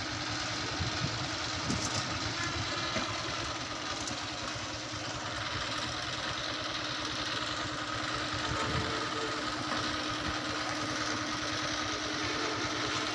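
An engine running steadily, with a constant hum and no change in speed.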